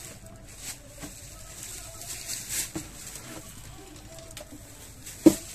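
Small handling sounds of hands decorating a clay pot with powders from small bowls: light taps and scrapes, then one sharp knock about five seconds in.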